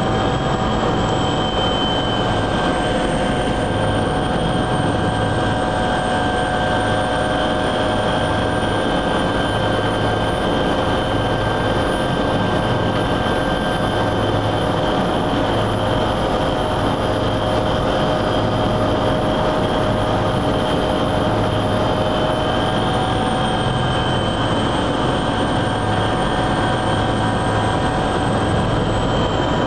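Helicopter turbine engines and main rotor running steadily on the ground, heard from inside the cabin: a constant mechanical drone with a high turbine whine that wavers slightly in pitch.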